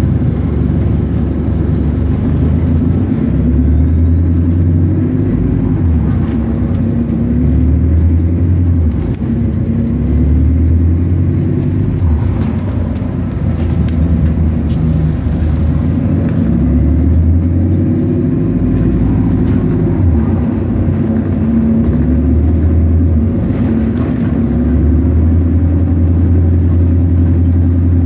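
Bus engine running while the bus is under way: a loud, steady low rumble whose pitch rises and falls again and again as it pulls away and eases off.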